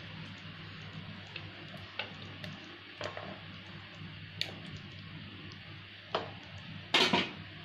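Shahi paneer gravy simmering in a pan: a faint steady bubbling hiss with scattered small pops. A short, louder knock comes about seven seconds in.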